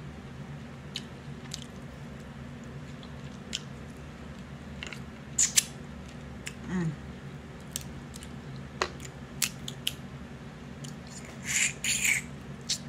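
Crab leg shells being cracked and picked apart by hand: scattered sharp clicks and crackles. Near the end, a short run of wet slurping and sucking as crab meat is eaten from the fingers.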